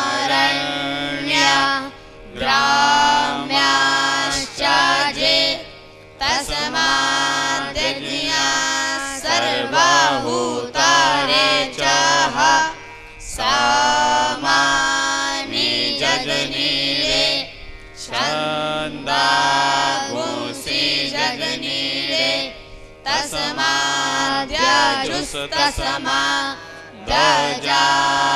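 Vedic students chanting Sanskrit Vedic hymns together in a melodic recitation, in phrases of a few seconds broken by short pauses.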